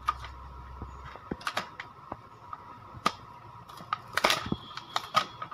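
Stiff clear plastic blister packaging crackling and clicking as it is pried up and peeled off a clay kit's card backing, in scattered sharp clicks with a denser run of crackles about four seconds in.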